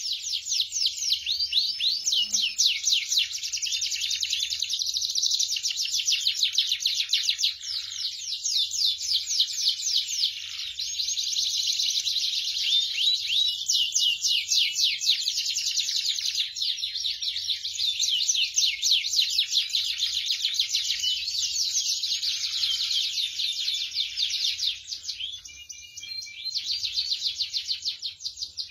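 Canary singing a long, continuous song of rapid high-pitched trills and rolls, almost without a break, easing briefly near the end.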